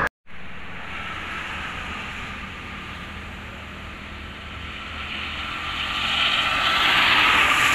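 Toll-road traffic: steady tyre and engine noise of cars travelling along the carriageway. It swells louder in the second half as vehicles approach.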